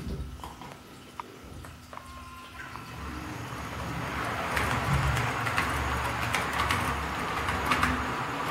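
HO-scale model trains running on the layout's track: a small-motor whir and wheel noise with scattered clicks, growing louder from about three seconds in as a locomotive passes close, then running on steadily.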